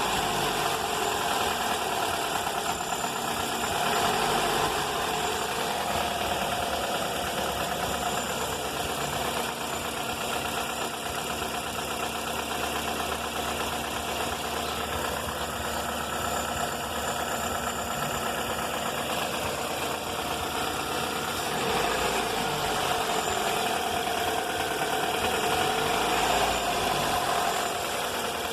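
2004 Toyota Corolla's four-cylinder engine running with the unexplained noise that has persisted through a full rebuild, including new pistons, timing chain, chain tensioner and VVT valve. The running is steady, and it gets a little louder a few times.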